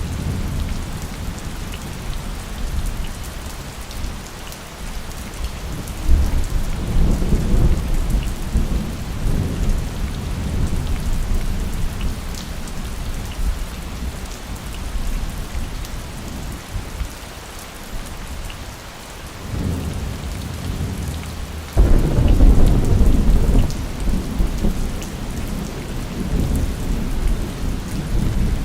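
Steady heavy rain with rolling thunder. A low rumble builds about six seconds in, and a louder clap breaks suddenly about three quarters of the way through, then rolls on.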